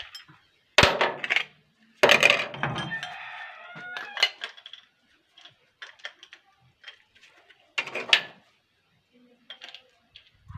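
Metal pieces knocking and clinking. There are two loud clanks about one and two seconds in, the second ringing briefly, then scattered light clicks and another clank near eight seconds.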